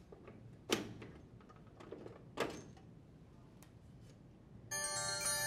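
A metal rear access panel on a GE top-load washer being pulled off and slid free of the backsplash: two clunks of sheet metal about a second and a half apart, with lighter clicks between. Near the end a sustained bright chime starts and holds.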